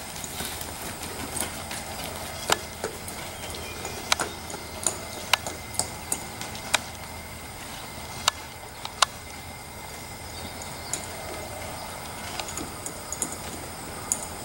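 A ridden horse walking and jogging on soft arena dirt: scattered sharp clicks and knocks from its hooves and tack, irregularly spaced, over a steady background hiss.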